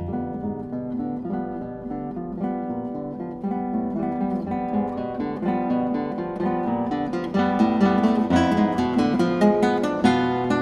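Background music: acoustic guitar picking and strumming, the plucked notes growing busier and louder from about seven seconds in.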